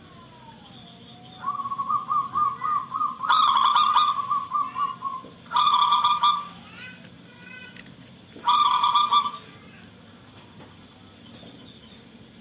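Zebra dove (perkutut) cooing: a rolling trilled note about a second and a half in, then a long clear coo, then two shorter coos a few seconds apart. A steady thin high-pitched whine runs underneath.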